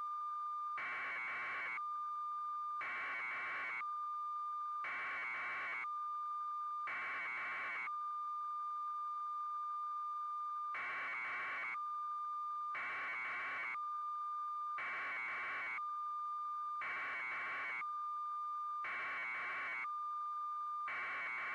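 A steady electronic tone, with a short burst of hiss about every two seconds; the bursts pause for a few seconds partway through.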